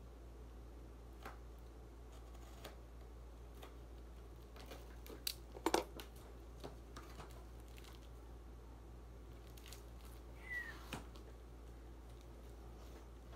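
A cardboard shipping box being pulled open by hand: scattered crinkles and cracks of cardboard, a loud cluster of tearing and crackling about five to six seconds in, and a brief squeak about ten seconds in.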